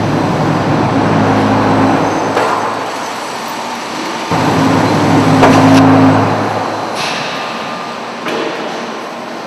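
Concrete block plant handling machinery running: an electric drive hums in two runs of about two seconds each, starting and stopping, over a steady factory din, with a few knocks.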